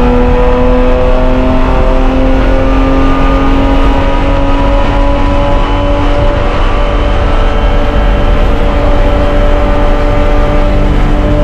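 Spec E30 race car's BMW straight-six at wide-open throttle, heard from inside the cockpit, revs climbing slowly in one gear down a long straight. The engine note breaks off near the end.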